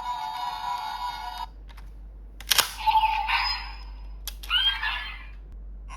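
Sound effects from a Bandai DX Ultraman Max key toy's small speaker: a short electronic jingle that stops about a second and a half in, then two sharp mechanical clicks of the toy, each followed by a burst of effect sound.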